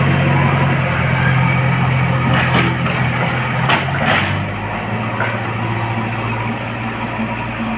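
Heavy vehicle engine running steadily, settling to a slightly lower speed about four seconds in, with a few sharp knocks around the middle.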